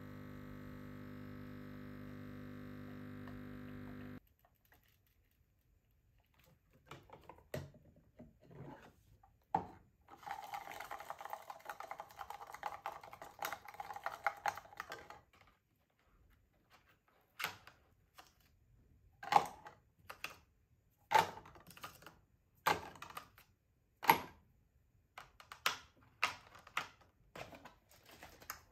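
A steady hum that stops about four seconds in. Then a straw stirring sugar into coffee in a clear plastic tumbler, swishing for about five seconds, followed by a run of sharp clicks and knocks of the straw and cup.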